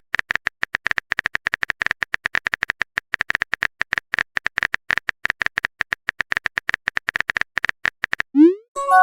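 Rapid, uneven clicking, about eight to ten short clicks a second, keeps going without a break.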